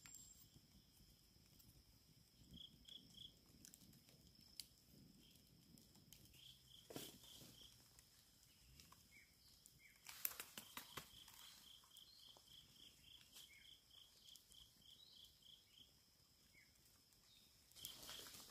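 Faint evening insect chorus: a steady high drone, with a chirping call repeated about three to four times a second in runs. A cluster of sharp clicks and knocks comes about ten seconds in, and a few more near the end.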